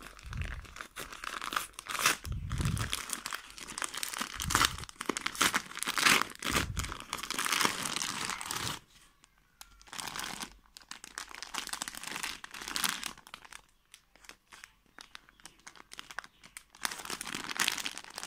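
Paper courier envelope being torn open and crumpled by hand, with a few soft low thumps. About halfway through it gives way to quieter, intermittent crinkling of a clear plastic wrapper around folded cloth.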